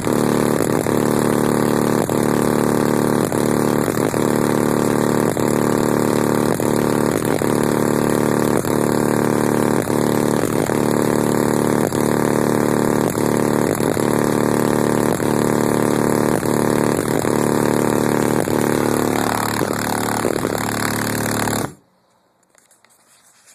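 Car-audio subwoofers playing a steady, heavily distorted low bass tone at full power, driven by a DC Audio 3.5k amplifier during a clamp test at 0.5 ohm. There are faint regular ticks about once a second, and the tone cuts off suddenly near the end.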